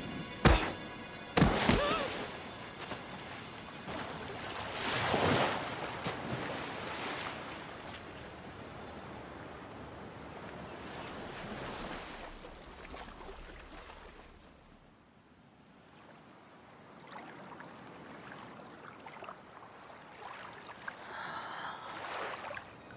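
Film soundtrack of music over a rushing, surf-like wash that swells and fades, with two sharp hits near the start.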